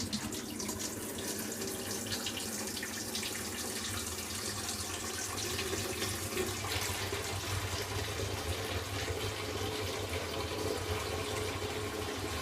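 Cold tap water running steadily into the empty water tank of a water-filter vacuum cleaner, filling it to its max line. The tap is turned on right at the start.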